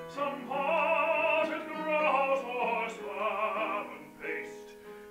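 A singer holding sung phrases with a wide vibrato, accompanied on a digital piano; the music gets softer toward the end.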